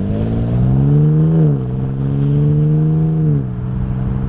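Ford Bronco Raptor's 3.0L twin-turbo V6 under throttle through an AWE SwitchPath 3-inch catback exhaust with an X-pipe and no resonators. The engine note climbs for about a second and a half, drops sharply, holds steady, then falls back toward idle near the end.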